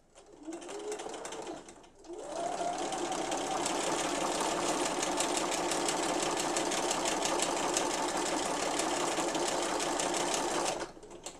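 Domestic sewing machine free-motion stitching with a darning foot: a short run, a brief stop about two seconds in, then the motor speeds up and runs steadily with fast even needle strokes until it stops near the end.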